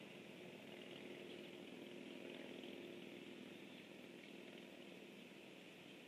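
Near silence: a faint, steady background hiss with a low hum underneath.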